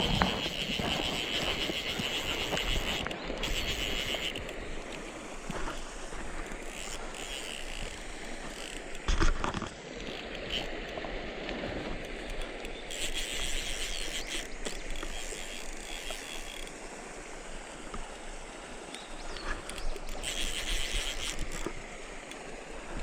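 Fishing reel ratcheting in spells, a rapid clicking buzz, as a hooked fish is played. One loud thump about nine seconds in.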